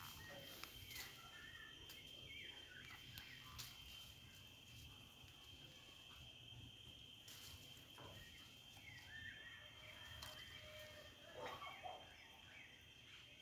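Near silence: faint outdoor ambience with a steady high insect tone, scattered faint bird chirps and a few soft clicks.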